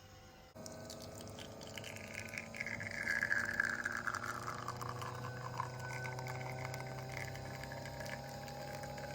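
Espresso machine's pump starting about half a second in and running with a steady hum as a shot is pulled, coffee pouring into the cup.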